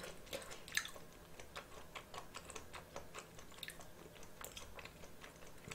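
Faint, irregular light clicks and taps, several a second.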